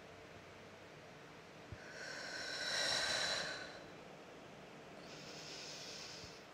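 A person breathing deeply and audibly through cat-cow yoga movements: one long, loud exhale about two seconds in as the back rounds into cat pose, then a softer breath near the end.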